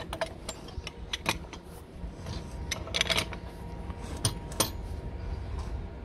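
Red pipe wrench biting and turning on a threaded cast-metal gas fitting clamped in a pipe vise, tightening the joint: a string of sharp metal clicks and clinks, with clusters about a second in, around three seconds in and about four and a half seconds in.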